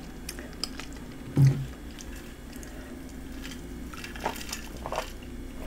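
Quiet mouth sounds of someone chewing food, with a brief hum about a second and a half in, then a few wet clicks and slurps from sipping a drink through a plastic straw in the second half.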